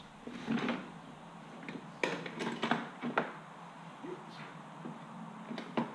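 Handling clatter of a chainsaw guide bar and hand tools: scattered small clicks and scrapes, busiest about two to three seconds in, with one sharp click near the end.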